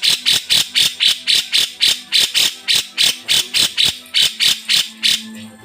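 Cucak jenggot bulbul calling: a loud, rapid, harsh note repeated about five times a second, stopping abruptly near the end.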